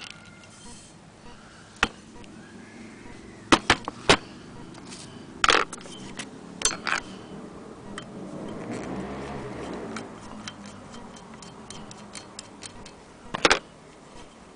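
Cast-iron hand-crank wheel of a Willcox & Gibbs sewing machine being handled and turned: sharp metal clicks and knocks, a soft rushing sound for about two seconds in the middle, then a run of light, quick ticks ending in one more loud knock.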